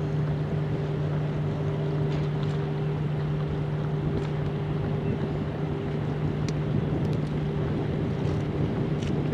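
Steady low engine hum from a harbour tug and a large container ship, with wind rumbling on the microphone.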